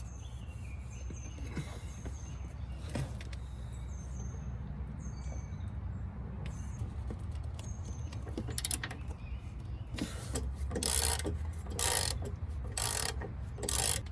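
Wrench working loose a Corvette C5 front subframe (cradle) nut: scattered metallic clicks and ratcheting, then four or five louder strokes about a second apart in the last few seconds, over a low steady hum.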